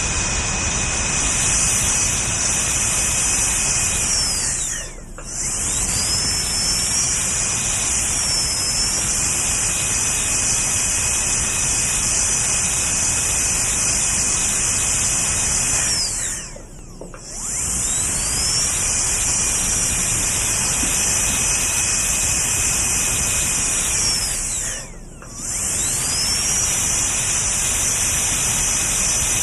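Dental drill running with a steady high-pitched whine and hiss. Three times, at about 5, 17 and 25 seconds in, it winds down with a falling pitch, pauses briefly and spins back up with a rising pitch.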